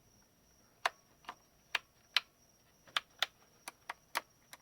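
A series of about ten sharp, irregular clicks and taps from small parts being handled during an unboxing.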